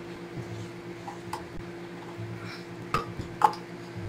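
A spatula scraping sweetened condensed milk out of a tin can over a glass blender jar, with a few light clinks and knocks; two sharper knocks come about three seconds in, the second the loudest. A faint steady hum lies underneath.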